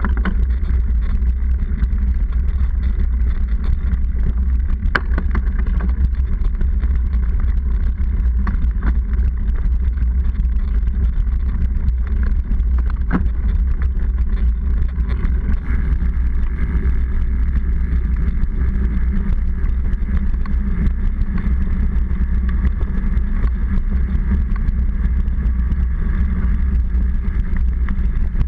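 Steady low rumble of a mountain bike riding on a rough paved lane, picked up by a seatpost-mounted camera: road vibration through the frame and tyre noise, with a few sharp rattles from bumps.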